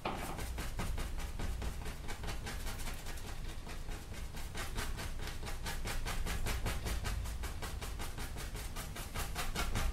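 Oil-paint brush scrubbed rapidly back and forth across a stretched canvas, blending colour in with short horizontal strokes: an even, rhythmic swishing of about six strokes a second that grows stronger about halfway through, over a low steady hum.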